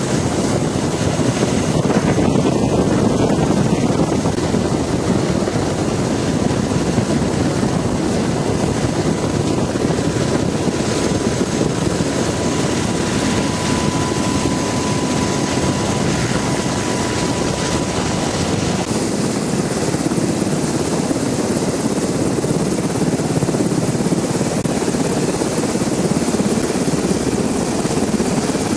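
Black Hawk helicopter running steadily, a loud, continuous rotor and engine noise, with a faint steady whine coming through in the middle.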